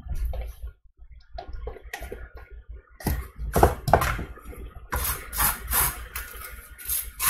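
Table knife scraping butter out of a plastic tub and spreading it across a toasted brioche bun. A few faint scrapes come first, then a run of about five quick scraping strokes in the second half.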